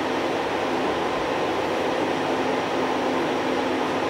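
Steady hum of ventilation fans and electronic equipment in the missile guidance station's operator cabin, an even rushing noise with a constant low tone.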